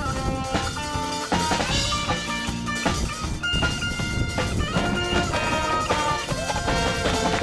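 Marching band playing a piece, with held melody notes over drums and percussion.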